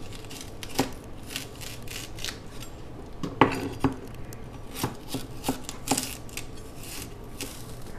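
Kitchen knife cutting celery stalks on a cutting board: a string of irregular sharp knocks of the blade against the board, the loudest about three and a half seconds in.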